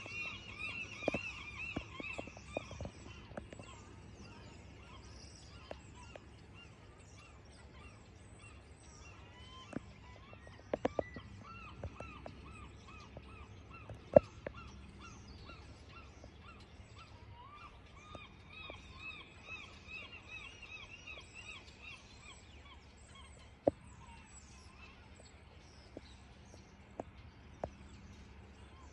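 Birds calling in several bouts of short repeated arched notes, over a steady low hum. A few sharp knocks are heard, the loudest about halfway through.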